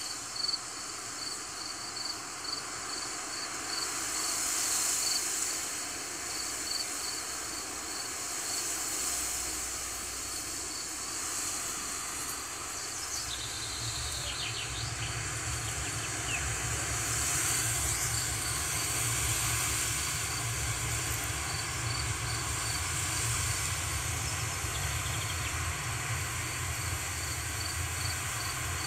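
Wind blowing through grass, a steady hiss, with an insect, likely a cricket, chirping in a regular beat throughout. About a third of the way in, low rumbling from wind gusts on the microphone comes in and grows stronger.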